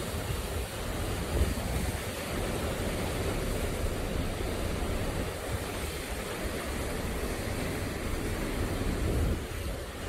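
Choppy sea waves breaking and washing over rocks along the shore, a steady rushing surf, with gusty wind rumbling on the microphone.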